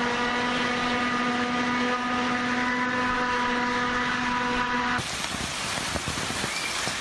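A steady motor hum with a whining tone over a hiss, which cuts off abruptly about five seconds in. A windstorm's rushing noise with rain and a few knocks takes its place.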